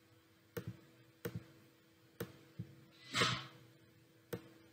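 Computer mouse clicking: short sharp single and double clicks spaced irregularly, half a second to a second apart. About three seconds in there is a brief soft rush of noise, and a faint steady hum lies underneath.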